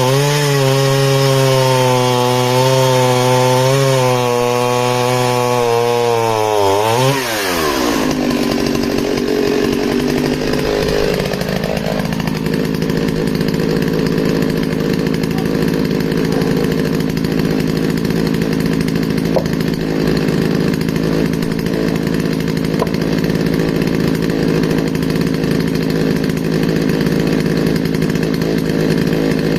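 Partner S50 two-stroke chainsaw with a fresh full-chisel chain running at high revs under load, its pitch wavering as it cuts spruce. About seven seconds in the throttle is released, the engine note falls away, and it settles into a steady idle.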